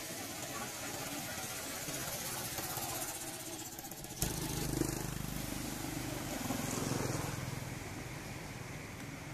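A vehicle engine running steadily; about four seconds in, a low, even hum starts abruptly and becomes the loudest sound.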